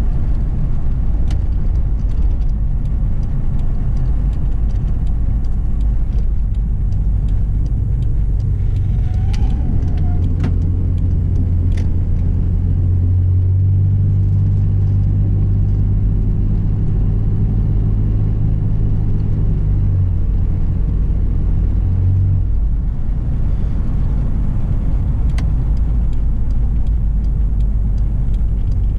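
Inside the cabin of a 1990 Toyota Land Cruiser FJ62 on the move: its 4.0-litre 3F-E straight-six engine runs steadily under a constant road rumble. A low hum grows stronger about a third of the way in and eases off about two-thirds through.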